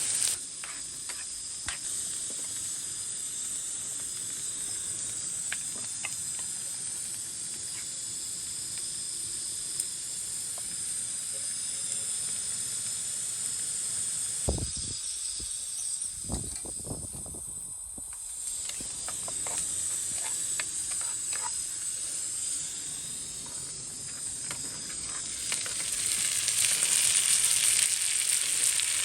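Hot oil sizzling steadily in a pan as eggs fry, with a few light clicks and taps. The sizzle dies down briefly about halfway through and grows louder near the end.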